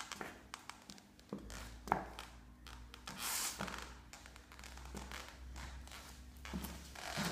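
Stiletto heels of red Casadei pumps clicking on a tiled floor in a few separate, irregular steps, the sharpest about two seconds in. A brief rustle comes about three seconds in, and a faint low hum runs under the middle.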